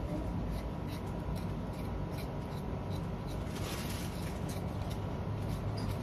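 Steady household background noise with faint, scattered light clicks and scrapes, and a low hum that grows louder near the end.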